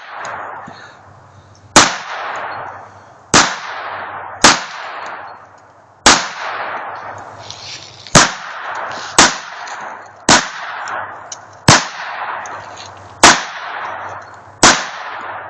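Traumatic pistol fired about ten times in a slow, uneven string, one to two seconds between shots. Each sharp report is followed by a long echo.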